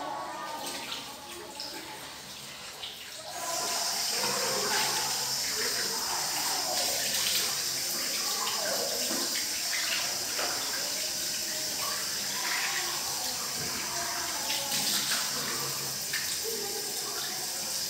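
Cold tap water running into a sink, turned on about three and a half seconds in and then flowing steadily, with splashing as a face is rinsed under it.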